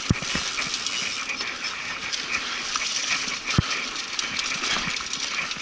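Mountain bike rolling over a dirt singletrack: steady tire and trail noise with small rattling clicks from the bike, and two dull thumps over bumps, just after the start and about three and a half seconds in.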